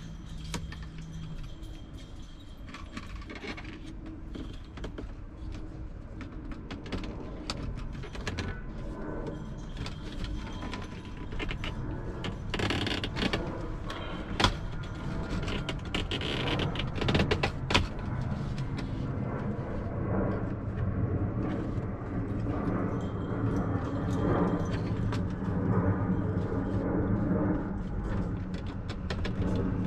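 ProClip dashboard phone mount being worked into place by hand: scattered clicks and knocks of the mount against the dash, with two sharper snaps around the middle, over a steady low hum that grows stronger in the second half.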